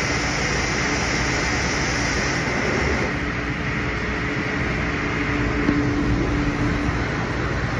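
ANCA FX7 CNC tool grinder running, its wheel grinding a carbide-style cutting tool under coolant spray: a steady rush of coolant and grinding noise over a low rumble and a steady hum.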